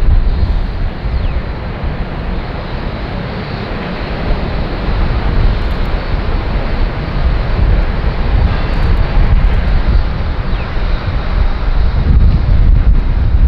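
Boeing 747-400 freighter on final approach: its four jet engines make a steady deep rumble with a broad roar over it, swelling louder near the end as the jet comes closer.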